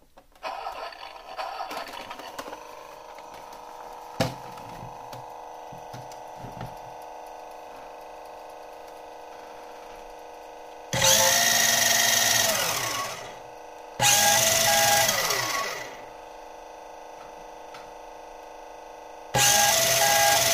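Artin Nissan 350z 1:10 RC drift car's built-in sound module playing its startup sequence through a small speaker. A steady electronic hum runs throughout. Two loud engine sound effects come about 11 and 14 seconds in, each rising in pitch, holding and then falling away, and a third loud one starts near the end with a pulsing beep over it.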